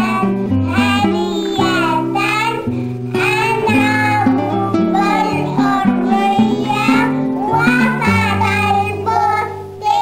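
Young girls singing a song together over instrumental accompaniment, whose low notes change about every second. The sound dips briefly near the end.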